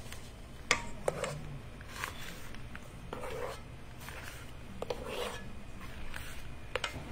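Spatula scraping and scooping whipped cream out of a stainless-steel mixing bowl into a piping bag, with a few sharp knocks of the utensil against the bowl, the loudest a little under a second in.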